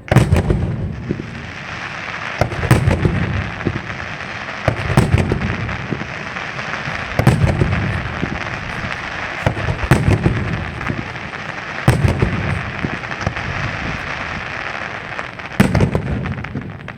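Fireworks display: deep bangs of bursting shells about every two to three seconds over continuous crackling.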